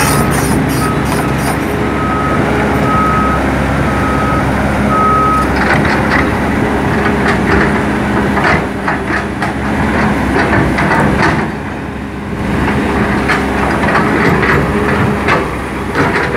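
Hydraulic crawler excavator running and travelling on its tracks. Its travel alarm beeps about once a second until about five seconds in. After that the steel tracks clank and rattle over the engine's steady drone.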